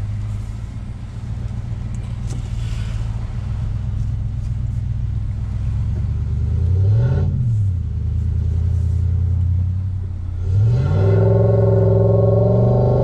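Motor vehicle engine running, briefly revving up and dropping back about seven seconds in, then revving up again and pulling harder near the end.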